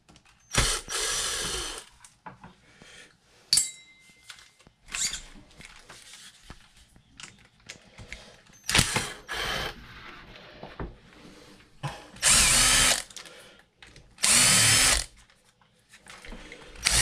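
Cordless drill-driver backing screws out of an RC truck's plastic chassis, whirring in short runs of about a second several times over, with small clicks of handling and parts between the runs.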